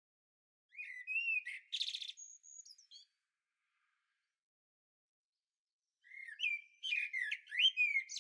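A songbird singing two short phrases of whistled, warbling notes with a high twitter, the second phrase beginning about six seconds in.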